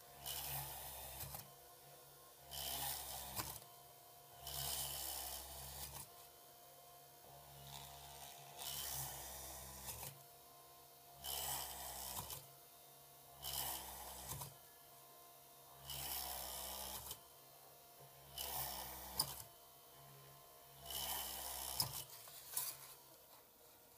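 Small handheld drill built from a bare DC motor, running steadily and drilling holes one after another through a copper-clad PCB. A roughly one-second grinding burst comes each time the bit bores through the board, about one hole every two seconds.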